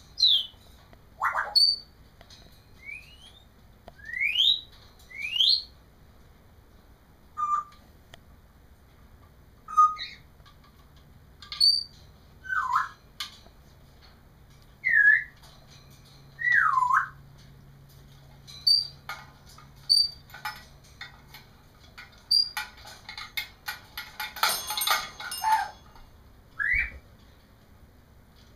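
African grey parrot whistling a run of separate notes a second or two apart: quick rising and falling glides and swooping U-shaped whistles, mixed with short chirps. Scattered clicks run through it, and a short harsh noisy burst comes near the end.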